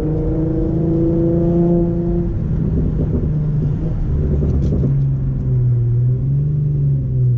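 Infiniti G35 coupe's 3.5-litre V6 engine heard from inside the cabin while driving: the note rises slowly under light throttle for about two seconds, turns rougher as the throttle eases, then settles into a lower, steady drone in the second half.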